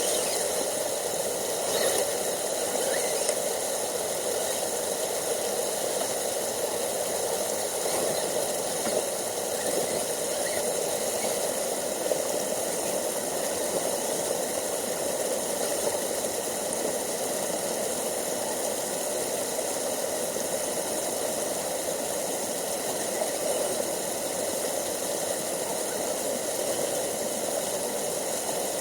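Steady rushing of a brook, an even hiss that does not change in level, with faint steady high-pitched tones above it.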